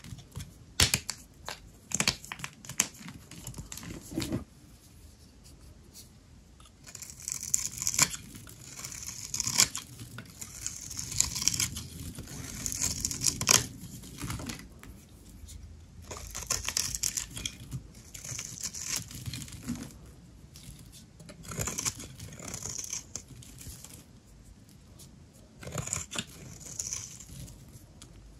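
Knife cutting through a bar of dry soap: a few sharp clicks in the first seconds, then about eight slow, scraping cutting strokes of roughly a second each.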